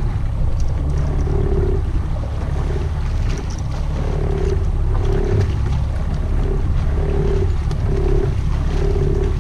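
Evinrude 90 outboard motor running steadily at low speed, with sea and water noise around the hull. A short mid-pitched tone repeats about once a second over it.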